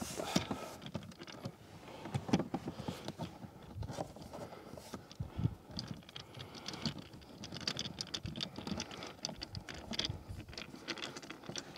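Irregular small clicks, taps and rustles of hands handling plastic interior trim and screws under a car's dashboard, with screws being refitted by hand.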